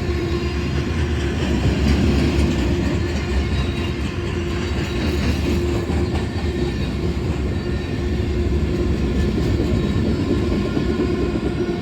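A CSX freight train of empty cars rolling past, its wheels running on the rails with a steady loud rumble and clickety-clack over the rail joints.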